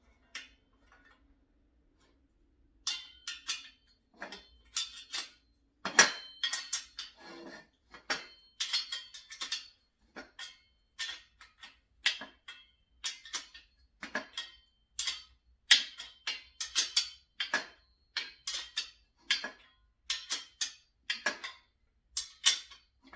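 Wrenches clinking against nuts, bolts and the tubular steel legs of a table saw stand as the nuts are tightened: a quick, irregular run of sharp metallic clicks, some with a brief ring.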